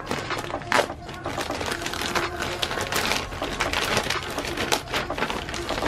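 A plastic poly mailer bag is slit with a small knife and torn open by hand, crinkling and rustling, with the sharpest rip a little under a second in.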